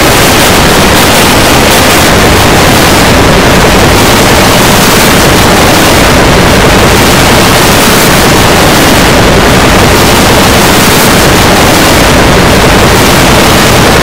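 Very loud, steady, distorted static-like noise filling every pitch evenly, with no recognisable source.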